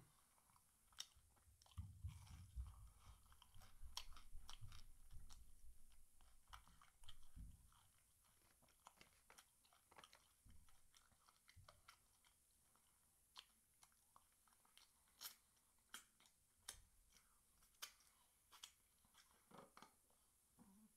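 Faint chewing and crunching of fried chicken, with many small scattered clicks of mouth and fingers. A low rumbling stretch runs through the first several seconds.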